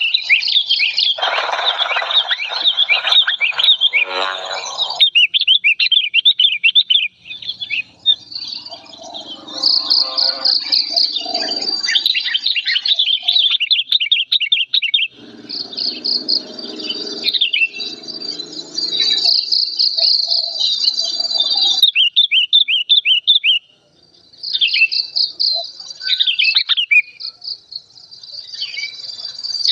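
Old sooty-headed bulbul (kutilang) calling agitatedly, loud and clear: fast runs of high, quick chattering notes broken by brief pauses. This is the excited, aggressive calling used as a lure recording to draw in other bulbuls.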